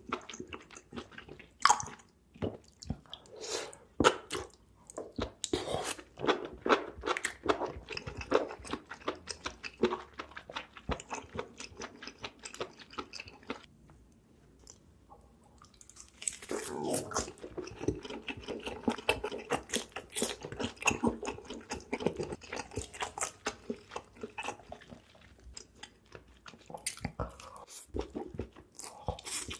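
Close-miked chewing and biting, with dense irregular wet clicks and smacks, pausing briefly about halfway through.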